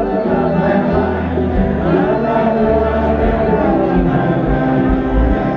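Small acoustic band playing live: singing over several acoustic guitars, with steady low notes underneath.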